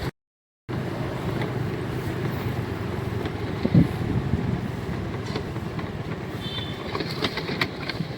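Vehicle engine and road noise while riding along a rough road, with a knock about four seconds in.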